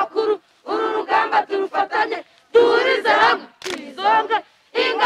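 A group of children chanting a song together in unison, in short phrases with brief pauses between them.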